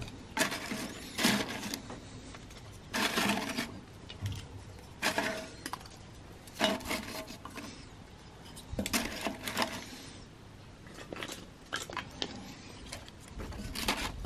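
Kindling sticks being dropped and set into the steel firebox of an Ozpig wood stove: wood clattering against wood and metal in a series of separate knocks and rattles a second or two apart.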